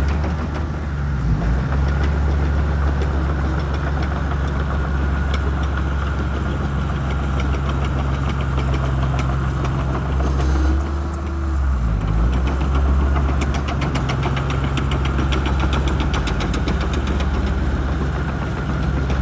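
Shantui crawler bulldozer's diesel engine running steadily under load as it pushes vegetation, its note dipping and changing briefly about halfway through. A rapid, even ticking runs alongside it for much of the second half.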